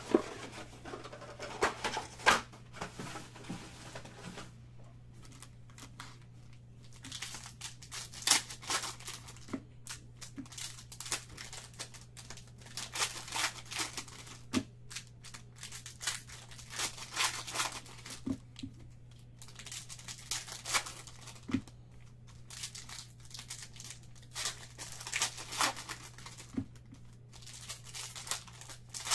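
Foil wrappers of Panini Certified basketball card packs being torn open and crinkled in bursts, with the cards handled in between. A steady low hum runs underneath.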